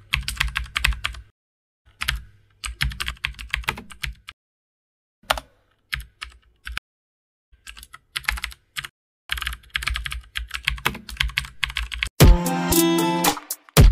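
Computer keyboard typing sound effect: runs of quick key clicks with short pauses between words. About twelve seconds in, music begins.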